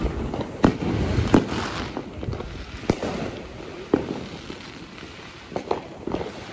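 Fireworks going off: a string of sharp bangs and pops at irregular intervals over a steady background din. After a quieter stretch, several smaller pops come close together near the end.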